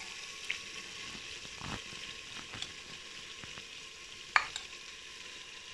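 Onion-tomato masala frying in ghee in a metal pot, a steady sizzle, as drained soaked red lentils are tipped in. Small clicks and one sharp knock about four seconds in.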